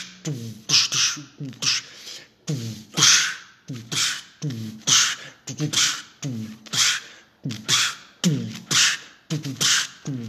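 A man beatboxing, with no words: a steady rhythm of low, falling kick-drum sounds made with the voice, alternating with short hissing snare-like bursts, each about once a second.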